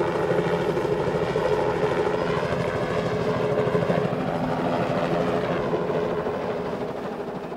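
Helicopter flying low overhead, its rotor chopping steadily, beginning to fade near the end.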